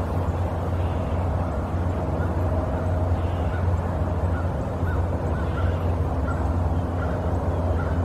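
Steady low outdoor rumble, with faint short bird calls repeating every second or so.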